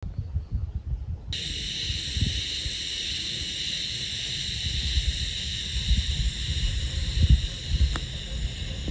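Wind buffeting the microphone in low, uneven gusts, with a steady high outdoor hiss that comes in suddenly about a second in and a single light click near the end.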